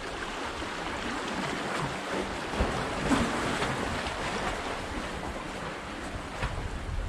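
Sea waves washing against the rocks at the water's edge, with wind buffeting the microphone; the wash swells a little in the middle.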